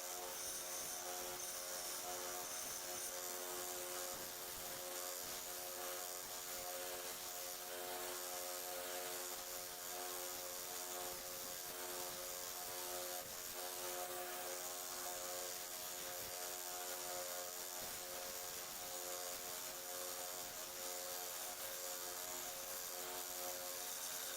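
Belt sander running steadily, its motor giving a constant buzzing hum with a high hiss from the moving belt.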